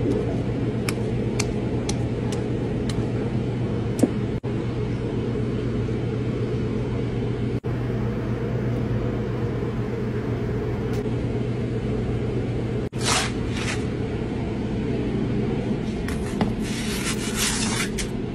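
Steady low hum of kitchen equipment, with a few light clicks in the first seconds. Short hissing, scraping noises come about 13 seconds in and again near the end.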